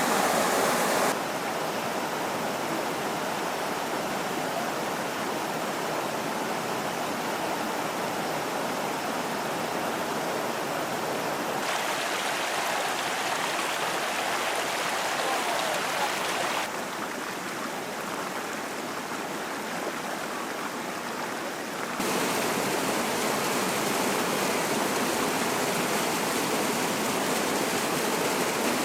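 Mountain stream rushing, a steady wash of flowing water, with its level and tone changing abruptly several times.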